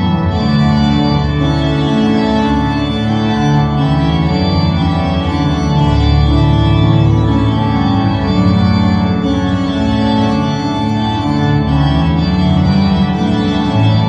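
Pipe organ playing loud held chords over bass notes that change every second or two.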